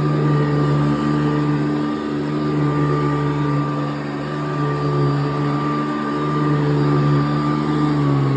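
Hoover Decade 80 upright vacuum cleaner running steadily, its motor humming with a high whine over the rush of air; the pitch dips slightly near the end.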